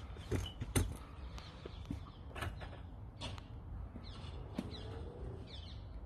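Hand digging and crumbling through loose potting compost in a plastic planter, giving scattered rustles and light clicks, the sharpest two within the first second.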